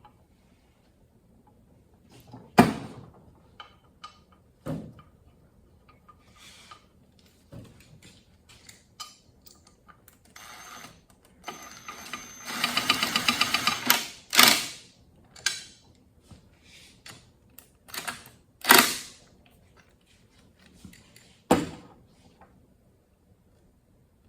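Hand ratchet clicking in a fast run while bolts are driven into the transmission's tail housing, with scattered sharp clinks of steel tools and bolts against the aluminium case.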